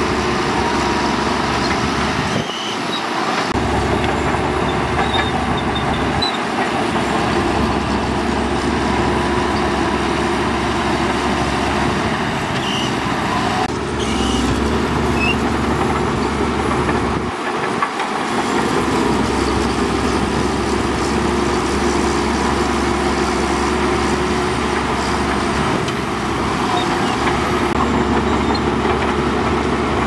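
Shantui DH17C2 bulldozer running under load while pushing sand: a steady engine rumble mixed with track and machinery noise. The low rumble drops away briefly about two and a half seconds in and again a little past the middle.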